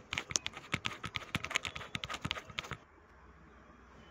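Quick plastic clicks and taps from a lightweight aluminium tripod's plastic pan head as hands work it, stopping after about three seconds.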